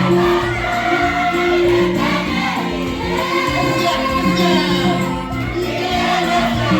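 Church choir singing a hymn with instrumental accompaniment, over a bass line that holds each note for about a second.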